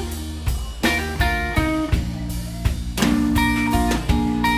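Live band playing a slow blues passage with no vocals: plucked guitar notes ringing over a drum beat.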